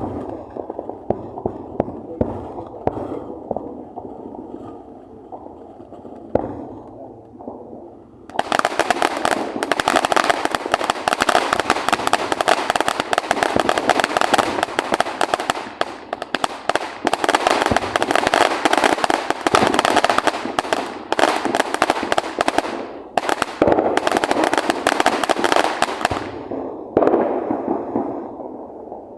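Fireworks going off. At first there are a few scattered pops. About eight seconds in, a dense run of rapid crackling pops starts, lasts roughly eighteen seconds and stops abruptly, with one short burst after it.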